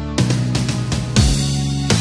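Background rock music with electric guitar and a drum kit, the chords changing with drum hits about every second.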